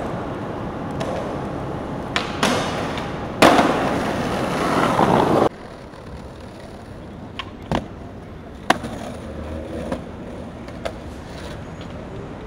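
Skateboard sounds: sharp clacks of the board on pavement, and a loud rough stretch of board and wheel noise about three seconds in that lasts two seconds and cuts off abruptly. After it comes lighter rolling with several more sharp clacks.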